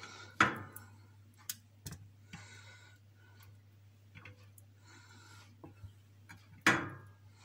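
Stuffed peppers being lifted out of a bowl and set down on a baking tray: a few knocks, the loudest about half a second in and near the end, with two short spells of light scraping and rustling between them.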